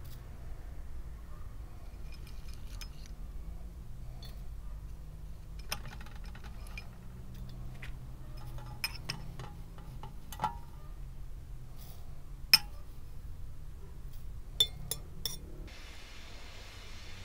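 Dishes and utensils clinking: scattered light clinks and knocks, several in quick pairs, the sharpest about twelve and a half seconds in, over a steady low rumble.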